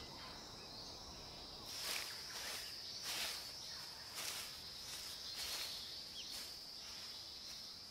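Faint outdoor ambience with a steady high insect trill, cricket-like, and several soft swishing sounds rising over it.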